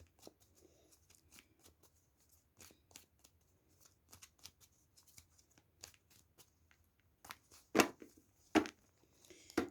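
Tarot cards being shuffled by hand: a run of soft, quick card flicks and rustles, with two louder snaps of cards a little before the end.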